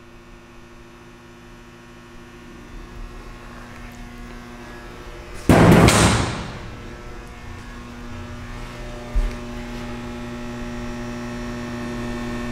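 Steady electrical hum from a Viet three-head wide belt sander, growing slightly louder. About five and a half seconds in, a sudden loud noise fades away over about a second as a hand works the handle of the machine's side panel.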